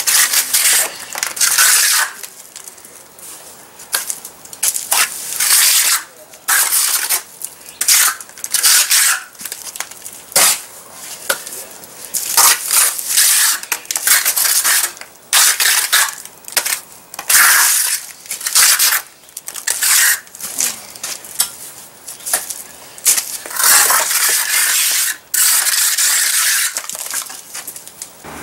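Mason's steel trowel scraping wet cement parging onto a concrete block foundation wall: a long run of short, gritty scraping strokes, roughly one a second and irregular, as the first coat is spread and flattened out.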